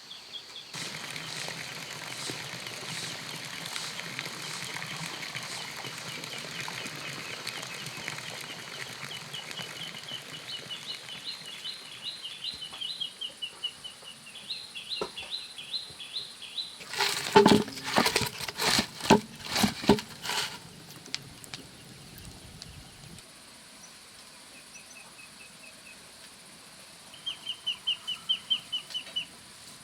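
A small bird chirping in quick repeated trills, each a rapid string of high notes, twice for several seconds and once more near the end. About halfway through comes a loud flurry of sharp rustling knocks lasting a few seconds.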